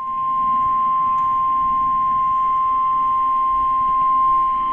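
NOAA Weather Radio 1050 Hz warning alarm tone: a single loud, steady high tone held without a break, signalling that a new warning message follows.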